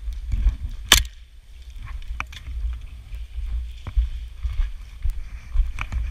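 Steady low rumble of movement and wind on the microphone, broken by four sharp snaps, the loudest about a second in.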